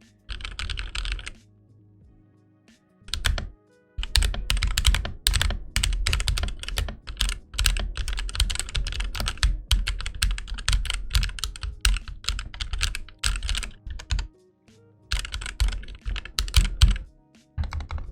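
Fast typing on a GK61 mechanical keyboard with Akko CS Rose Red linear switches, mostly unlubed, a board with a lot of rattle. Dense runs of keystroke clicks, broken by a pause about a second and a half in and another near the end.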